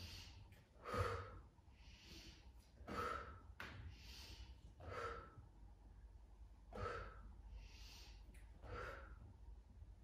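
A woman breathing hard in rhythm with a Pilates abdominal exercise: five strong out-breaths about two seconds apart, each matched to a repetition, with quieter in-breaths between them.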